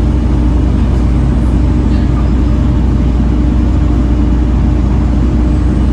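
Volvo B7TL bus's straight-six diesel engine running steadily, a constant low drone with a steady hum in it.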